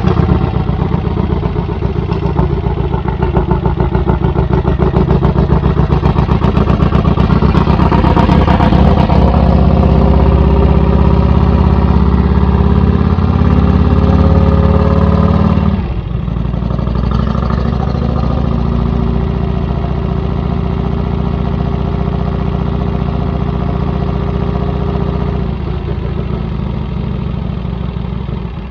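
Vincent 1000cc V-twin motorcycle engine with an open straight-through exhaust, running under way with its chokes turned off. The exhaust beat builds and grows louder in the first half, drops suddenly in level about halfway through, then carries on at an even, lower beat that fades near the end.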